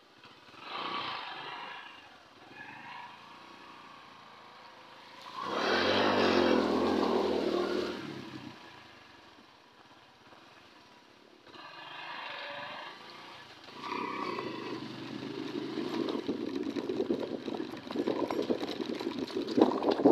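Motorcycle engine sound that swells and fades several times, loudest about six seconds in, then a rough engine sound that builds steadily over the last six seconds.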